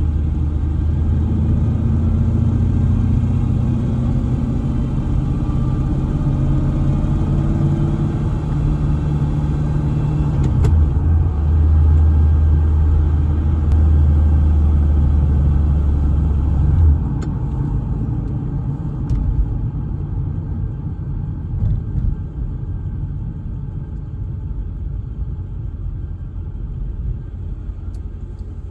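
Car on the move: a steady, low engine drone with road rumble. The engine note drops away about two-thirds of the way through, leaving quieter rolling rumble.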